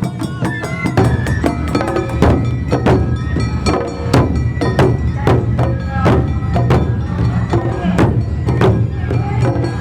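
Traditional Japanese festival music: drum and wood-block strikes at a steady beat over a held melody line.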